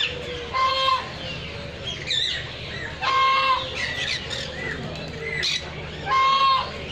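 Captive aviary birds calling: a loud, harsh squawk repeats about every three seconds, with smaller chirps and short whistled calls between.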